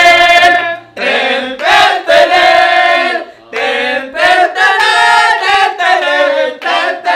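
Several people singing together without instruments, in held notes with short breaks between them.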